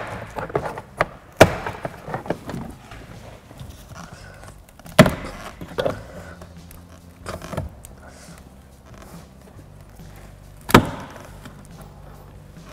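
Plastic door-panel retaining clips snapping loose as a trim tool pries the interior door panel off, with three loud sharp snaps and lighter knocks and clatter of the panel between them.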